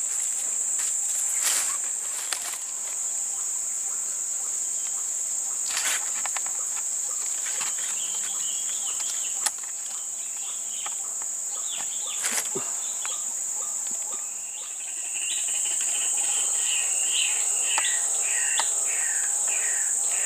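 Steady high-pitched drone of insects, with a single sharp click about halfway through and a run of short repeated bird calls in the last few seconds.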